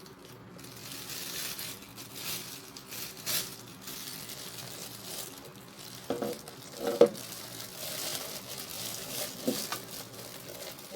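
Packaging crinkling and rustling as the parts of a new meat grinder are unpacked and handled, with a few knocks of parts being set down, the loudest about seven seconds in.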